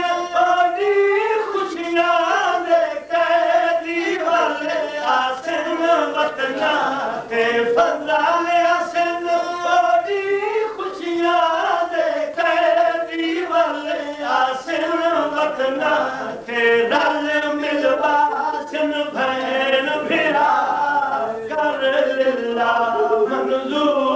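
Men's voices chanting a Punjabi mourning lament in long, held melodic lines, led by one voice at a microphone.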